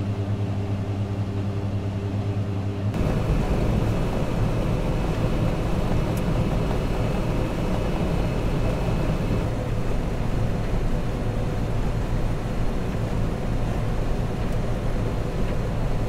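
John Deere combine harvester running, heard from the cab: a steady engine hum at first, changing abruptly about three seconds in to a fuller, rougher machine noise as the header cuts and threshes the wheat.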